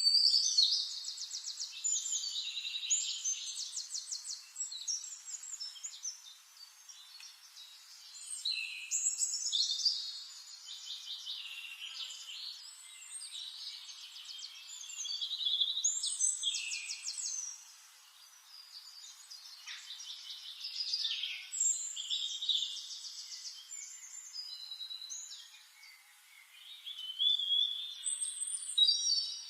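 A songbird singing long, varied phrases full of rapid trills, in about five bouts of a few seconds with short pauses between them.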